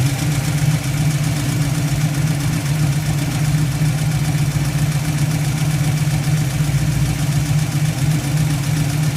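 1967 Mustang's 331 stroker V8 idling steadily with a rapid, even ticking from the valvetrain. It is the sewing-machine type of tick typical of roller rockers, though the owner is unsure whether it comes from the lifters or the roller rockers.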